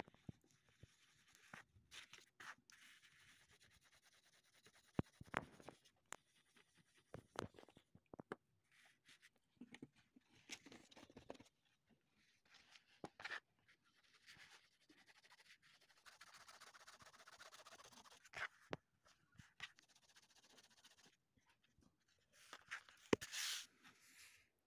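Faint scratchy rubbing of an aluminium-bronze coin rubbed by hand on a cloth with polishing paste, coming in patches with scattered light clicks, the loudest near the end.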